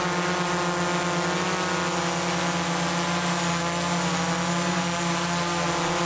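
DJI Air 3S quadcopter hovering, its four propellers giving a steady buzzing hum made of several fixed pitches, with the strongest a low drone.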